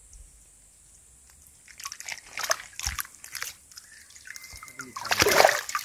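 Water dripping and trickling off a large arapaima and a cast net as they are lowered into shallow water, then louder splashing from about five seconds in as the fish goes into the water.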